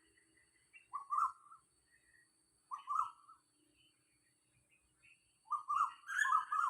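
Asian koel calling: short two- and three-note calls about a second in and again about three seconds in, then a longer run of calls near the end.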